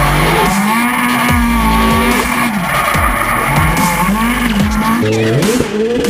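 Drift car's engine revving up and down over and over, its pitch rising and falling about once a second, with the rear tyres squealing as it slides.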